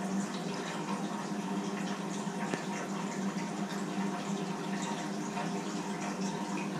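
Steady rush of water in a home aquarium, typical of a filter return stirring the tank, over a constant low hum.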